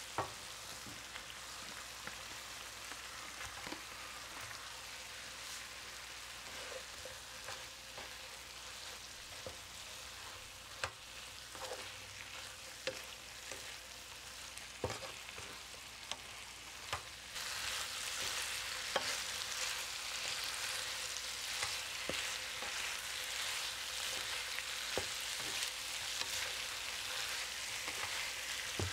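Tempeh and tofu sizzling in sauce in a non-stick pan as they are stir-fried, with scattered clicks and knocks from the stirring utensil against the pan. The sizzling grows louder a little over halfway through.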